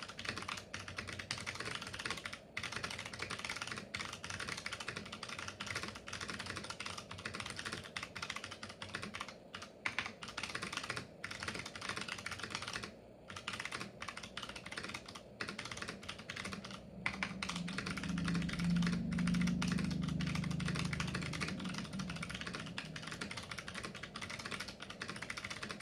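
Continuous typing on a Leading Technology PC Partner keyboard with clicky SMK second-generation MX-mount switches and double-shot keycaps: a fast, dense run of key clicks with a few brief pauses. A low hum swells under the typing about two-thirds of the way through and then fades.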